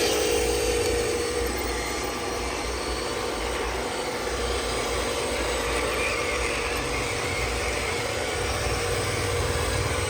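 Radio-controlled model trucks driving, a steady mechanical whirring with a low rumble and a faint whine that comes and goes.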